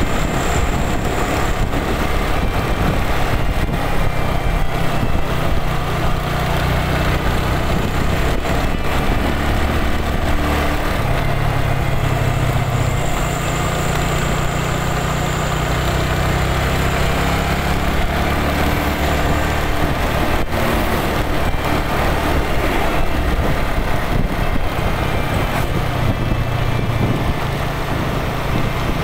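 Engine and road noise heard from a moving motorcycle: a steady low drone that changes little.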